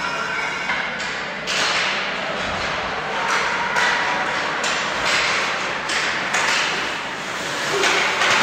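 Ice hockey play on a rink: repeated scraping strokes of skate blades on the ice, with sharp knocks and taps of sticks and puck about once or twice a second.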